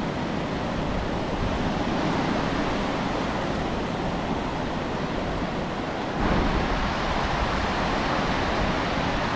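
Steady rushing noise, growing a little louder and brighter about six seconds in.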